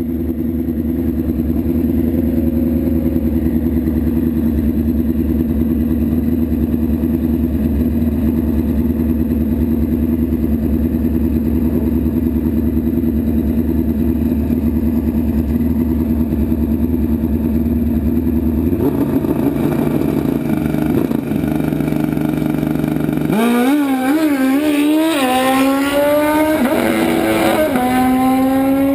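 Drag-racing motorcycle engines running at a steady, held speed on the start line. About three quarters of the way in, an engine revs up hard and accelerates, its pitch climbing and dropping back several times as it shifts through the gears.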